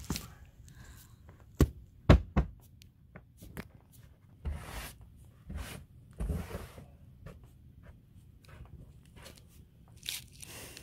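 West Highland white terrier puppy burrowing and digging in deep powdery snow: scattered brief crunches and swishes of snow, with three sharp thumps about two seconds in.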